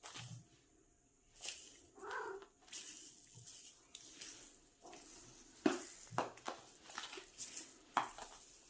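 Irregular sharp clicks and scuffs, with one short cat chirp about two seconds in.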